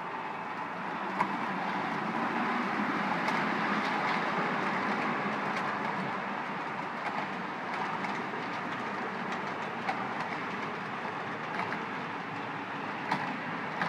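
Model freight train running across the track: the steady running noise of the locomotive and the cars' wheels on the rails, with a few sharp clicks. It grows louder over the first few seconds, then slowly fades.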